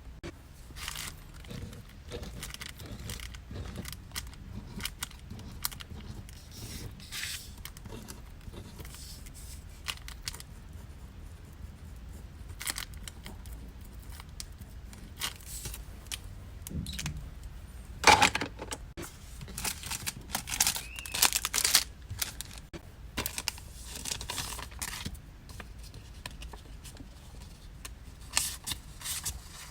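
Hand-packing of small stationery orders: paper and plastic packaging rustling and crinkling, with scattered small clicks and taps as items are handled. A sharp knock about eighteen seconds in, then a busier stretch of rustling.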